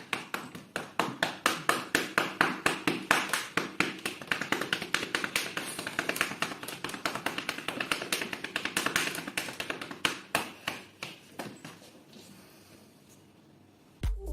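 A cat being given a percussive massage: rapid, even tapping, about four to five taps a second, that fades out about three quarters of the way through.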